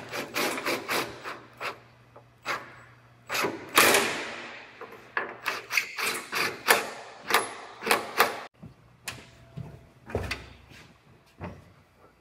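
Cordless impact driver with a socket on an extension working door hinge bolts: a run of short, irregular sharp clicks and metallic knocks, with one louder ringing clank about four seconds in.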